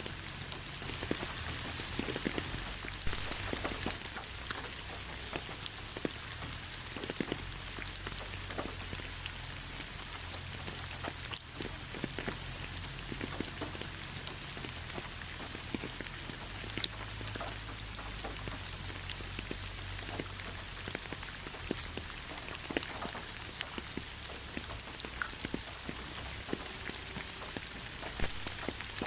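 Steady rain falling, a constant hiss with many close individual drops ticking and pattering on surfaces.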